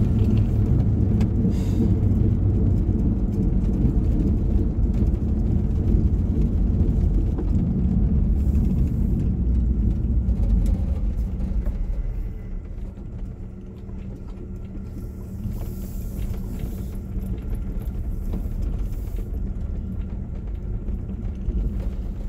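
Car cabin noise while driving: a steady low road and engine rumble. About twelve seconds in it gets quieter as the car slows toward a stop, leaving a steady low engine hum.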